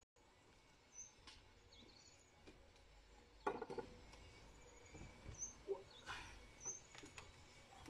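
Faint open-air quiet with a few short bird chirps, broken by several knocks and clatters of objects handled on a table, the loudest about three and a half seconds in.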